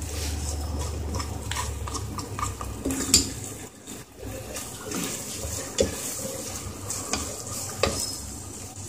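Wooden spatula stirring and scraping sliced onions and whole spices through hot oil in a pot, with a light frying sizzle. Now and then the spatula knocks against the pot.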